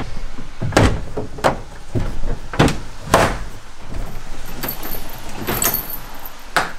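Sharp knocks and clicks from a roof-mounted ski box as its mounting clamps are worked by hand, about seven spread through it.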